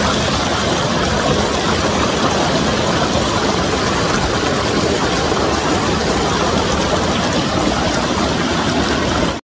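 River rapids rushing over rocks and splashing around people sitting in the current, close to the microphone. The roar is loud and steady and cuts in and off suddenly.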